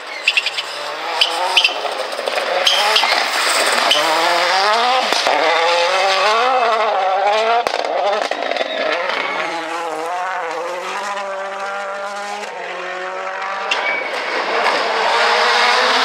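Toyota Yaris WRC rally car's 1.6-litre turbocharged four-cylinder engine revving hard through the gears on a stage. Its pitch climbs and drops again and again with each shift, and there are a few sharp cracks near the start.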